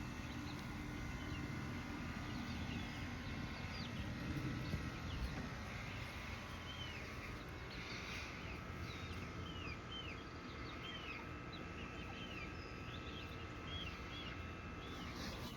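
Chickens calling softly, with many short high chirps scattered through, thickest in the middle, over a faint steady hum.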